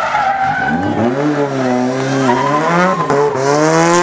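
Ford Sierra rally car's engine revving hard as it accelerates away out of a bend, the pitch climbing from low, dropping briefly at gear changes about two seconds in and again near three seconds, then climbing again.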